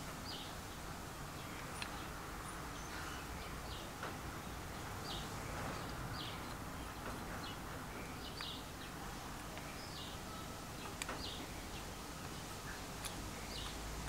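A bird chirping repeatedly in short, high chirps a second or so apart, faint, with a few light clicks of metal parts being handled.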